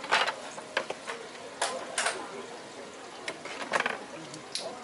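A squid being gutted and cleaned on a cutting board with a knife and bare hands: an irregular series of sharp knocks and wet slaps of knife and squid against the board, about eight in all.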